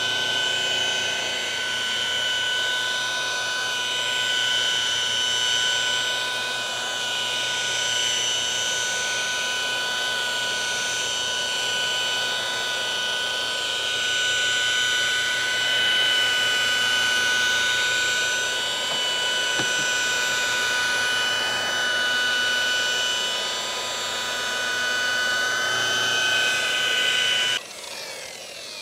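Rotary polisher with a wool pad running steadily on fibreglass gelcoat, compounding out sanding scratches. It gives a constant whine and stops suddenly about a second before the end, then winds down.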